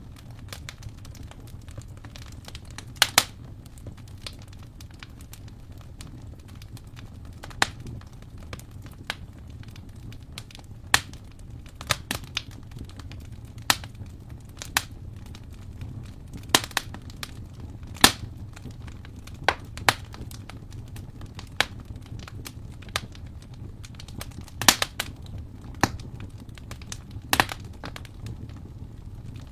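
Wood fire in an open fireplace crackling, with sharp irregular pops every second or two over a steady low rumble of the flames.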